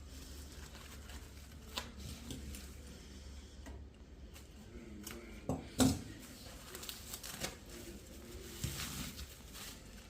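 Packaging and amplifier circuit boards being handled while unpacking: scattered light clicks and taps, the loudest about six seconds in, with rustling near the end.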